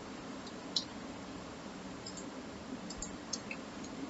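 A few scattered, sharp clicks of a computer mouse over a steady low hum, with the strongest click about a second in and a small cluster near the end.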